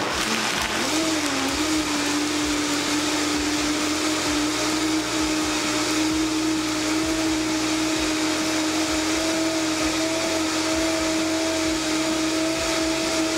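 Vitamix 5200 blender running, pulverising fruit peels and water into a liquid slurry: a steady motor whine over loud noise of the churning contents. The pitch wobbles and dips about a second in as the load settles, then holds steady.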